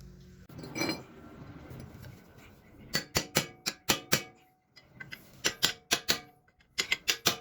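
Hammer striking a punch against the staked collar of a front CV-axle nut, knocking its locking tabs free: quick, sharp metal-on-metal taps with a brief ring, in three fast runs of about five or six blows each starting about three seconds in.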